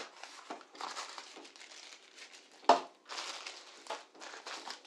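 Tissue paper crinkling and rustling as wrapped accessories are handled and lifted out of a cardboard box. There is a short knock at the start and a louder sharp knock a little under three seconds in, the loudest sound.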